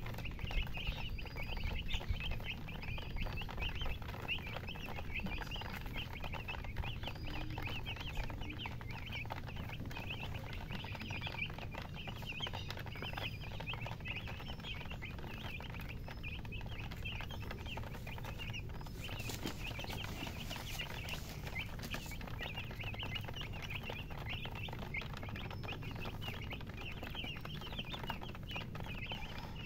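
A group of baby chicks chirping continuously, many overlapping high, short peeps, over a steady low rumble.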